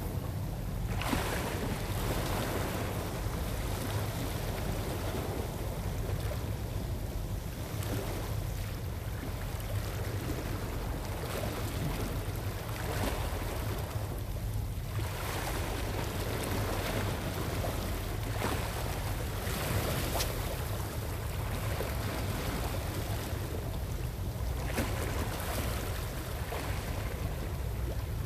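Small waves washing against the shore rocks, swelling and easing every few seconds, over a steady low rumble.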